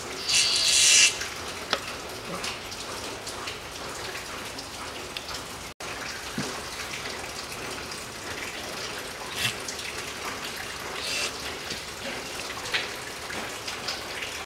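Gear oil being squirted from a large hand syringe into a transfer case filler hole. There is a short hissing spurt about a second in, then scattered small clicks and squelches over a steady background hiss.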